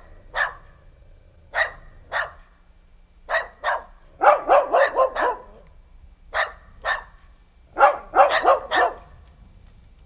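An animal barking: short, sharp barks, singly and in pairs, with a quick run of about five barks around the middle and another near the end.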